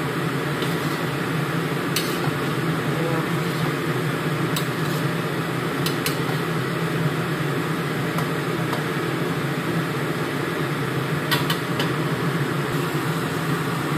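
Kitchen exhaust fan running with a steady hum over food frying in a wok. A metal spatula clicks against the wok a few times, about two, five to six, and eleven seconds in.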